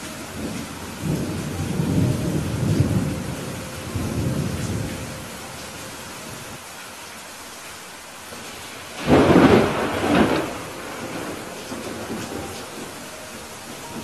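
Steady rain with thunder: a low rolling rumble in the first few seconds, then a sudden loud thunderclap about nine seconds in that cracks again a second later and fades out.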